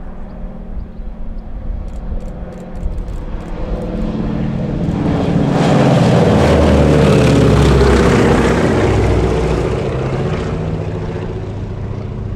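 Lisunov Li-2's two Shvetsov ASh-62IR nine-cylinder radial engines running as the airliner flies past low. The propeller and engine sound grows to its loudest about six to nine seconds in, then fades as it flies away.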